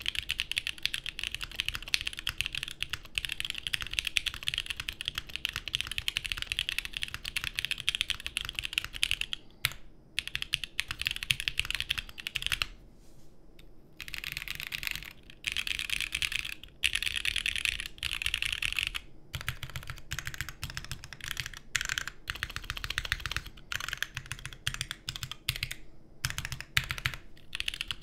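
Fast typing on a plateless Vertex Arc60 custom mechanical keyboard with SP Star Polaris Grey switches and GMK keycaps, a deep-sounding, flexy build. Keystrokes run in dense streams, with a pause of about a second and a half near the middle and a few shorter breaks.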